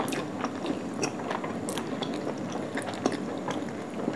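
Chewing of a big mouthful of soft rumali roti flatbread, with wet mouth sounds and scattered small clicks.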